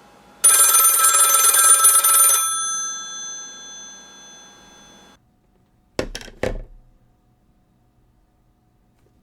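Northern Electric 554 rotary wall telephone's two brass bells ringing: one ring of about two seconds as the striker hammers the bells, then the bells ring on and fade before cutting off. Two sharp clicks follow about a second later.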